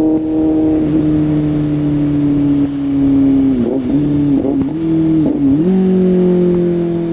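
Kawasaki Z800's inline-four engine and exhaust running under way, its pitch slowly falling, dipping briefly three times in the middle, then stepping up about five and a half seconds in and easing down again.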